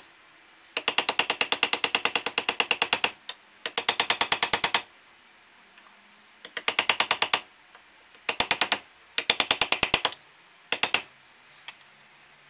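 Rapid tapping, about ten sharp taps a second in several short runs: a taped piece of flat bar driving a new fork seal evenly down into a motorcycle fork slider, working around it to seat it.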